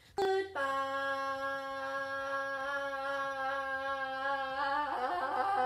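A woman's singing voice drawing out a slow 'goodbye' as one steady note, held for about four seconds. About five seconds in, her voice moves to quicker, wavering notes.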